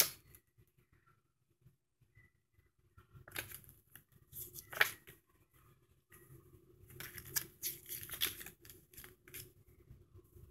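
Paper rustling and crackling as a folded instruction sheet is handled and opened out: a couple of rustles a few seconds in, then a longer run of crinkling in the second half.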